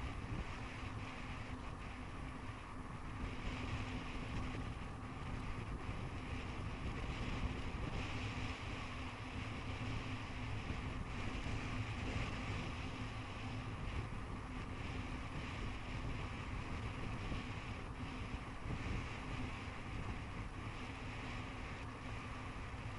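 Wind noise on the microphone of a moving bicycle's camera, over the steady rolling rumble of the bicycle on a paved road, with a few faint clicks.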